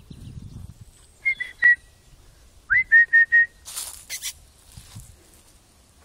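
A person whistling short notes at one steady pitch, plausibly to call a dog: a few quick pips, then about a second later a rising note and a run of four quick pips. Brief rustling follows.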